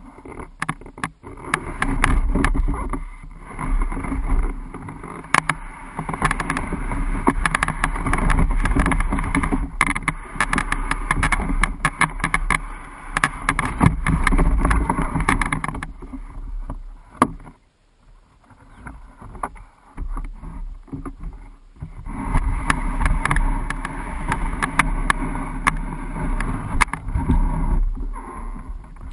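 An Old Town Pack Angler canoe hull being dragged over rough ground, a rough scraping broken by many knocks and bumps, heard close up through the hull. It comes in surges and stops for a few seconds a little past the middle before starting again.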